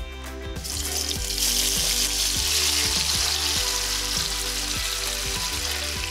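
Raw chicken gizzards dropped into hot vegetable oil in a nonstick wok, sizzling loudly. The sizzle starts about half a second in and eases off slightly near the end, over background music.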